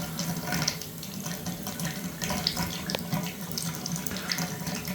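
Water running steadily through an old shower valve that will not shut off, with a few small clicks over the rush of the water.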